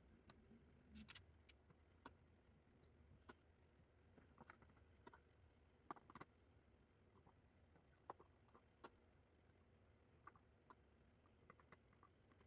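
Near silence with faint, scattered clicks and taps of a metal spoon against a steel pot and a plastic tray as sauce is spooned over graham crackers.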